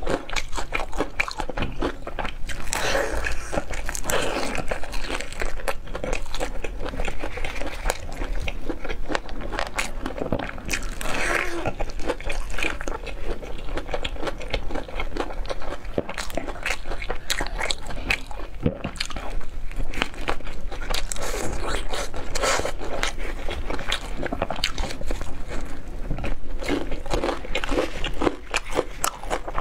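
Close-miked biting and chewing of crispy deep-fried battered chicken, the coating crunching and crackling in many small, irregular snaps with each bite.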